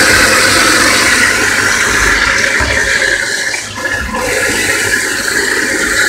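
InSinkErator garbage disposal running in a kitchen sink, grinding up spoiled food waste, with water rushing down the drain. It is a loud, steady noise that eases off briefly about three and a half seconds in.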